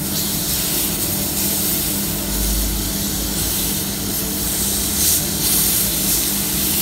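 Chicken pieces sizzling steadily in an oiled grill pan on a gas flame, the sizzle swelling a few times as they are turned over with metal tongs, over a steady low hum.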